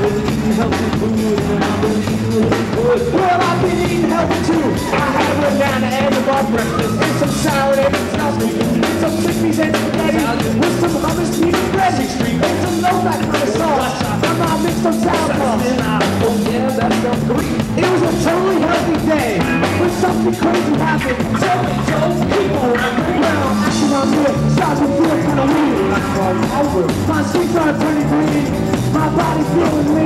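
Live rock band playing: drum kit, electric bass and electric guitars, with a singer.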